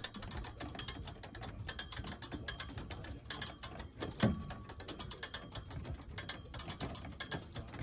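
Wall jack's ratchet clicking over and over as its handle is pumped, winching a framed wall upright on its cable. One brief louder sound comes about four seconds in.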